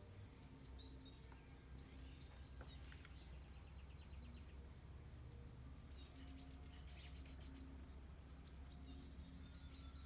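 Small songbirds chirping faintly here and there, with a quick rattling trill about three seconds in and a busier run of chirps around six to seven seconds. A low steady hum of background noise lies underneath.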